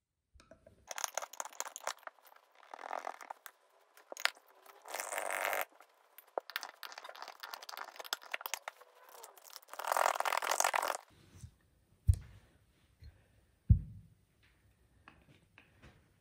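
Metal paint tins being handled on a dust-sheet-covered workbench: repeated bursts of scraping and rustling, then two dull thumps near the end.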